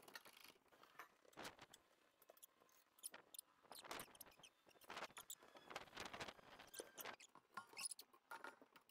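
Near silence, with faint, irregular clicks and scrapes from a hoist chain, lifting strap and steel truck frame being handled as the frame is tilted up.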